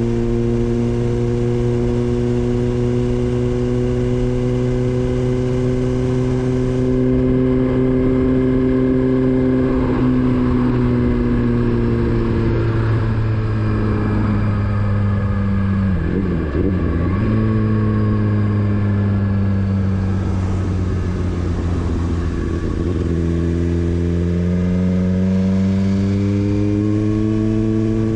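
Motorcycle engine running while being ridden. The note holds steady, drops in pitch as the bike slows about a third of the way in and again near the middle, then climbs in the last few seconds as it accelerates.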